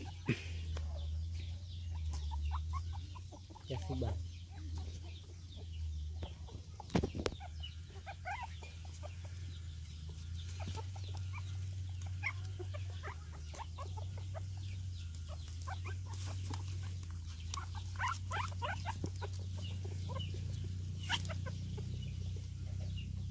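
Young puppies making short, scattered high squeaks and clicks as they crawl and feed, over a steady low hum.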